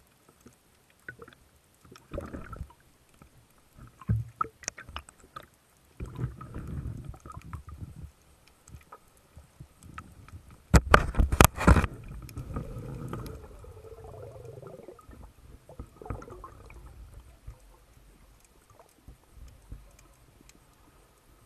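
Underwater handling noise picked up by a speargun-mounted camera: scattered clicks and knocks and low rumbling water movement, with a burst of loud knocks and rattling about eleven seconds in as the gun and shooting line are handled.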